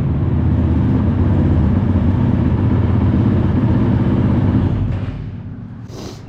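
Honda CRF450L's single-cylinder four-stroke engine running steadily, then dying away about five seconds in. The engine is hot and due an oil change, as the owner says.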